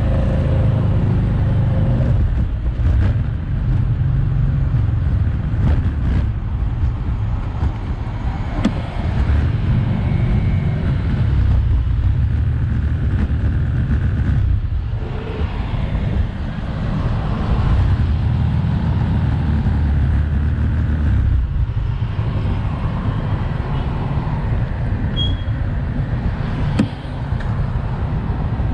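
Road traffic noise: motorbikes and cars running along a busy city street under a steady low rumble, with a short knock near the end.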